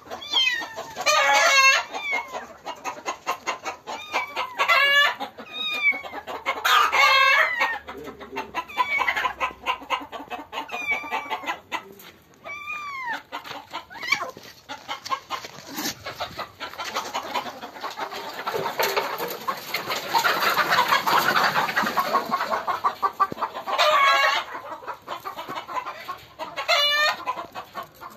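Kitten meowing in distress again and again, short loud calls that rise and fall in pitch. A few seconds of rough, noisy sound take over in the middle, and then the meows return near the end.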